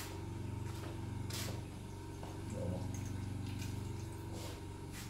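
Steady low hum of a running electricity generator, with faint splashing as a thin stream of oil is poured into a stainless steel pot, and a couple of light clicks.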